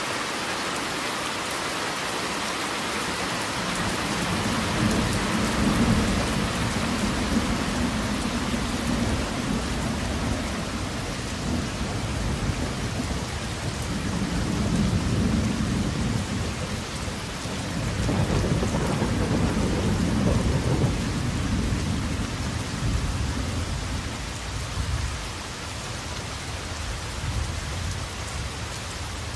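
Steady rain hissing, with rolling thunder rumbling low in several long swells: about four seconds in, again around fourteen seconds, a stronger one around eighteen to twenty-two seconds, and another starting near the end.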